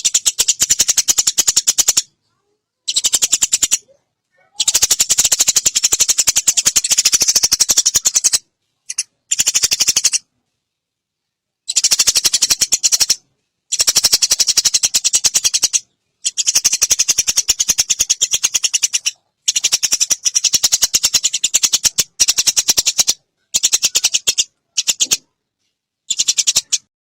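Eurasian tree sparrow giving long, rapid rattling chatter calls: fast, high-pitched ticking runs in bursts of about one to four seconds, broken by short silent gaps.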